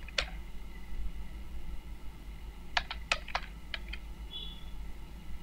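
Typing on a computer keyboard: a single keystroke just after the start, then a quick run of about six keystrokes around three seconds in, entering a CSS font name.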